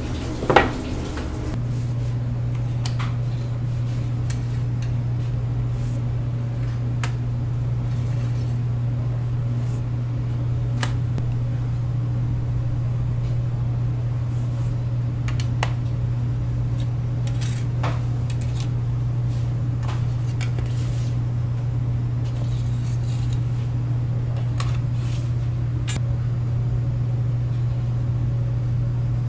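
Steady low machine hum in a bread-making kitchen, with scattered light clinks and a sharp knock about half a second in.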